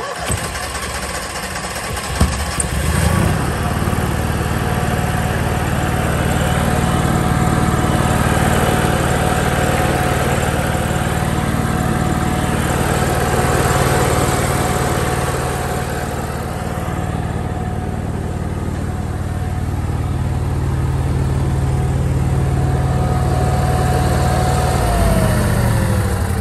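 Cummins Onan RV QG 5500 gasoline generator engine cranking, catching about two seconds in, then running steadily with a steady whine above the engine hum; the seller says it needs new piston rings. Near the end it is switched off and the whine falls in pitch as it winds down.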